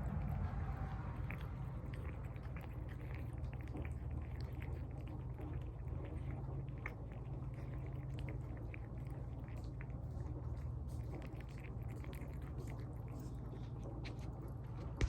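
A cat eating tuna, with a continuous run of small wet chewing and licking clicks. One sharp knock comes right at the end.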